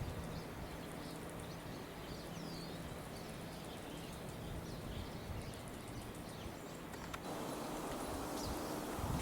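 Small songbirds chirping and twittering, with many short high notes and quick pitch slides, over a low steady hum. About seven seconds in, the background hiss gets louder.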